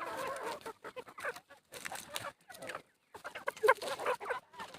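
Kadaknath chickens clucking in short, irregular calls, several birds at once.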